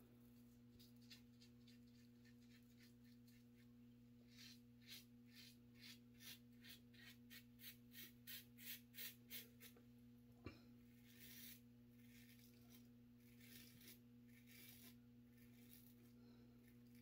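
1959 Gillette Fatboy safety razor scraping stubble on the neck in short, faint strokes, about two a second from about four seconds in, with a single click midway and a few more strokes later. A low steady hum sits underneath.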